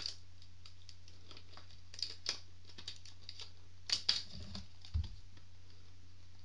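Light plastic clicks and taps from handling a Samsung Galaxy S4 and working its back cover off to fit the battery, in irregular bunches, loudest about four seconds in, with a dull bump a second later.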